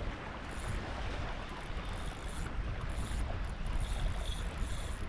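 Wind rumbling steadily on the microphone over a wash of surf on an open beach.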